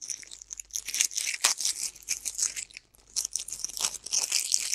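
Small clear plastic bag crinkling and crackling as it is worked open by hand, with a short break about three seconds in.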